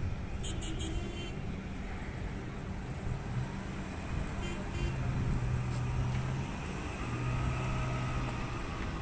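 Steady low rumble of car traffic and idling engines, with a few rapid light clicks about half a second in and a low engine hum that comes and goes in the second half.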